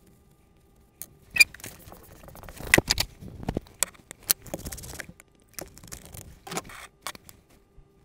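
Small objects handled on a workbench: a run of sharp clicks, taps and rustles as a small metal buckle is rubbed clean in a tissue and a small glass jar is set down on the cutting mat. The loudest clicks come about one and a half and three seconds in.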